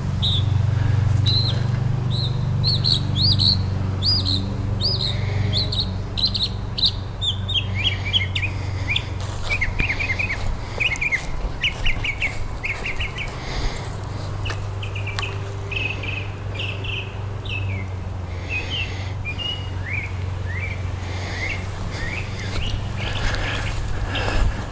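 Small songbirds chirping in quick runs of short notes, higher-pitched for the first several seconds and lower after that, over a steady low hum.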